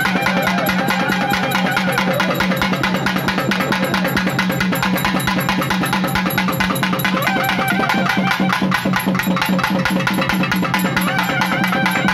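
Loud festival music: fast, steady drumming with a wavering melody line over it, accompanying a kavadi dance.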